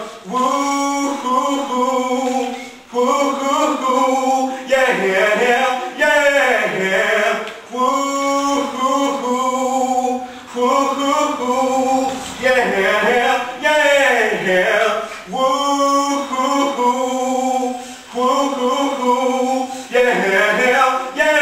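A male voice singing unaccompanied: held, steady notes in phrases of about two seconds, each followed by a downward slide in pitch.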